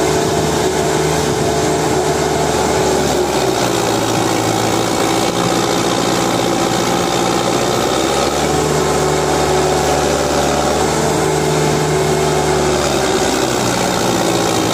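Preet 6049 60 HP tractor's diesel engine running steadily under load as it hauls a loaded trolley through soft ground. Its pitch shifts slightly a few times.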